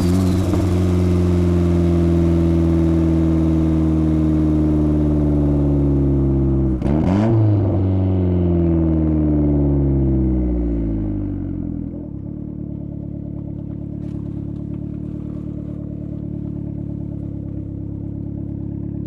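Turbocharged Honda Civic D16 four-cylinder engine running, its revs falling slowly. About a third of the way in it gives a quick throttle blip with a short burst of noise, and the revs then sink further. For the last third it idles steadily and more quietly.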